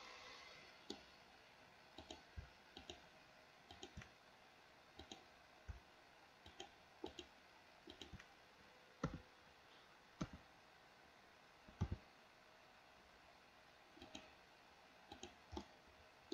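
Computer mouse and keyboard clicking: faint, scattered, irregular single and double clicks over quiet room noise.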